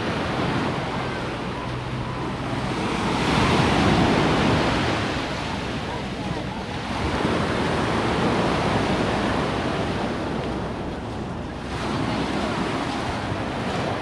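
Small sea waves breaking and washing up a pebbly shore, surging three times, with wind buffeting the microphone.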